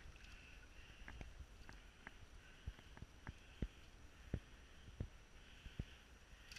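Faint handling noise as a rope stringer with fish on it is pulled up: about a dozen soft, irregular clicks and taps over a low steady hiss.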